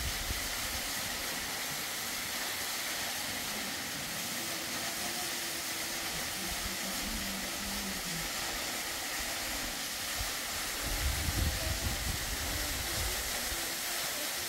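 A steady outdoor hiss, with a brief low rumble about eleven seconds in.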